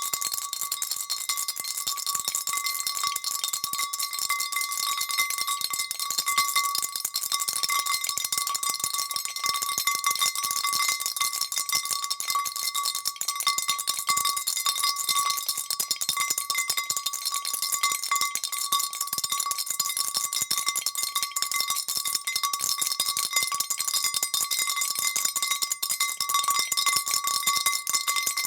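Bell noisemaker rung nonstop: a rapid, unbroken run of metallic strikes over a steady, high bell tone.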